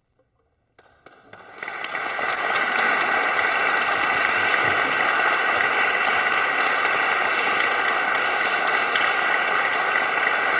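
Concert audience applauding after a moment of silence, the clapping starting about a second in and quickly building to steady, dense applause.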